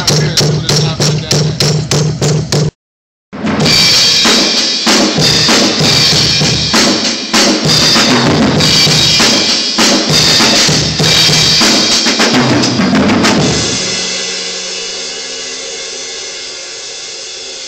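Drum kit being played: a fast, even run of strokes on one drum, about seven a second, then after a brief dropout a full, busy pattern with cymbals crashing. It ends on a cymbal left ringing and slowly fading.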